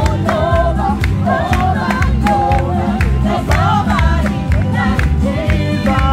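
Gospel worship music: voices singing a melody over a band with a steady beat and a heavy bass line.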